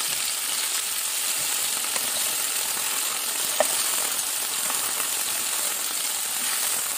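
Beef cubes sizzling in hot oil in a frying pan, a steady hiss, with one sharp click about halfway through.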